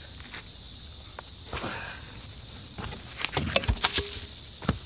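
Steady high chirring of insects, with a cluster of sharp knocks and cracks about three to four seconds in and one more near the end. The chainsaw is not running.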